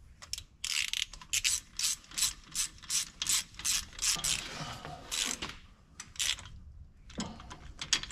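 Socket ratchet clicking in quick strokes as a new spark plug is run into the Gator 825i's three-cylinder engine. A long run of clicks, a short pause, then a few more near the end.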